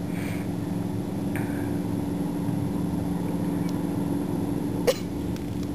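Steady low motor hum, with one sharp click about five seconds in.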